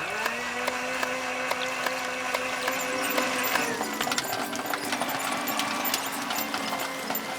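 A clattering, whirring mechanical sound effect that starts abruptly, with several steady held tones under many fast clicks.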